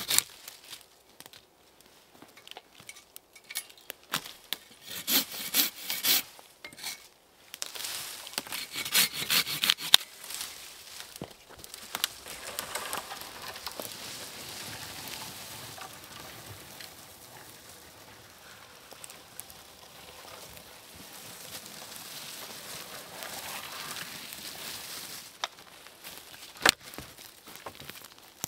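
Handsaw cutting wood, in short bursts of rapid strokes during the first ten seconds, then a quieter, steadier rasping, with a few sharp knocks near the end.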